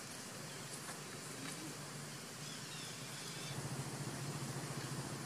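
Steady outdoor background noise: an even hiss over a low hum, with a few faint high chirps.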